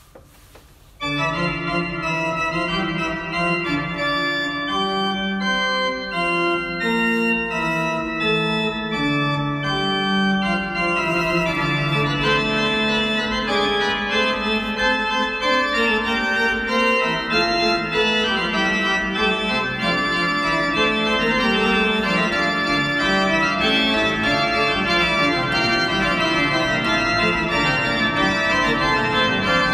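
Church organ playing, held chords under a slowly moving melody, starting about a second in.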